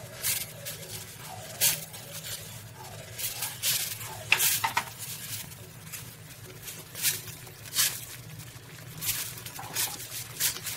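Steel ladle scraping and knocking against a steel kadhai while stirring a thick semolina and rice-flour mixture, in irregular strokes about once a second, over a steady low hum.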